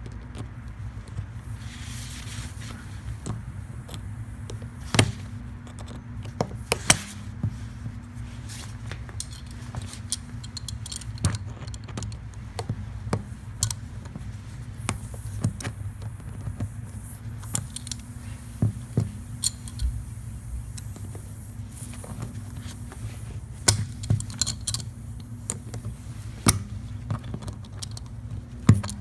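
Irregular sharp metal clicks and light scrapes of pliers working a screw out of a tire's tread, over a steady low hum.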